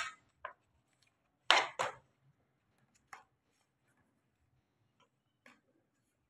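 Sharp knocks and clicks from a plastic cone collar being handled and fitted around a cat's neck: two loud ones close together about a second and a half in, then a few fainter ones.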